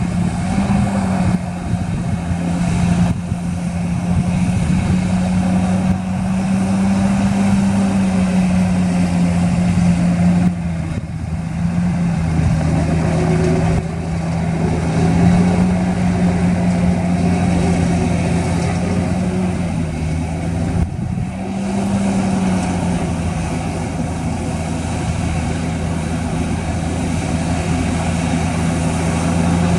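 Heavy construction machine's diesel engine running steadily, its pitch stepping up and down several times as the revs change.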